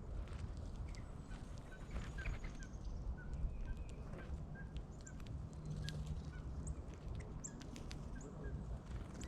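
Birds calling: a run of short chirps, joined in the second half by a few thin, higher notes, over a steady low rumble.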